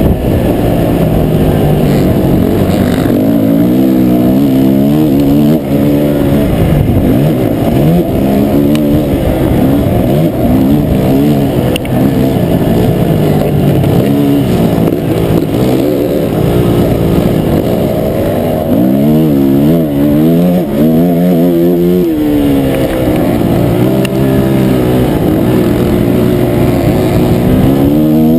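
Motocross dirt bike engine heard on board, revving up and down over and over as the rider accelerates, shifts and backs off through the track's turns.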